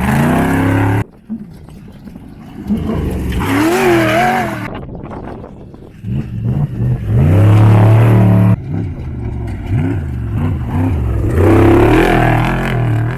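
Off-road desert race vehicles' engines revving up and down as they come through a turn, the pitch rising and falling, with the sound cutting off and changing abruptly a few times.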